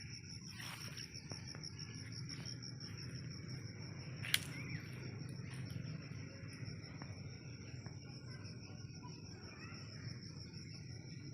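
Crickets or other insects chirring in a steady, fast-pulsing high trill over low rural background noise, with one sharp click about four seconds in.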